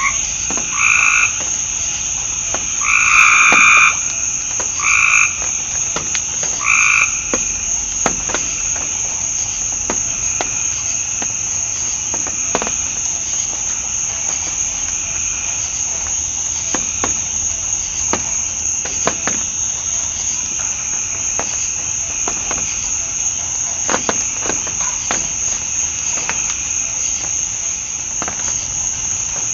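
Frogs calling in short repeated bursts, about four or five calls in the first seven seconds, over a steady high-pitched drone of night insects that runs throughout. Faint scattered clicks follow once the frogs stop.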